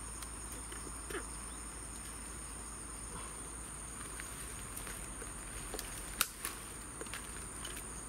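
Steady high-pitched insect chirring, with a few short sharp clicks from handling the hook and tool while unhooking a deep-hooked snakehead, the loudest click about six seconds in.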